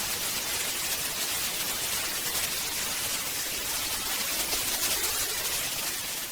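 Steady hiss of white-noise static: a dead broadcast signal after the station's feed has cut out. It tapers slightly near the end.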